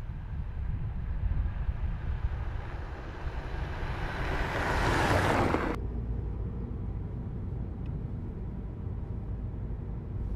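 Car driving on a dirt road, the tyre and engine noise growing louder as it approaches and cutting off sharply about six seconds in. After that comes a steady low rumble of engine and road noise heard inside the car's cabin.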